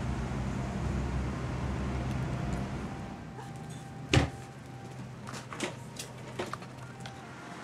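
A low steady hum, then one sharp knock about four seconds in, followed by a few lighter taps and clicks.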